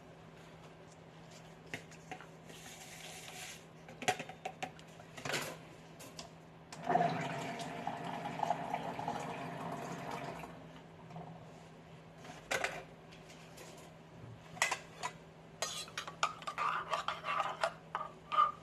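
Dishes and cutlery clinking and knocking in scattered sharp strikes. A denser stretch of clatter mixed with water runs from about seven to ten and a half seconds in. A faint steady low hum sits underneath.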